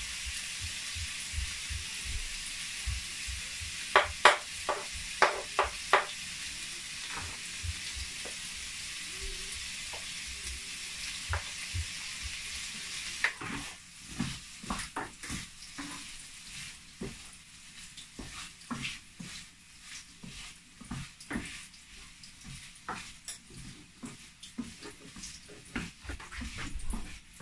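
Shredded chicken sizzling in butter in a frying pan, with a cluster of sharp knocks about four to six seconds in. About halfway through the sizzle drops away and a wooden spatula scrapes and knocks against the pan as the chicken is stirred.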